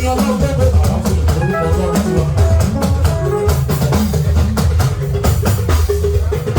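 Instrumental band music: a steady drum beat with a bass line and melodic lines above it, no singing.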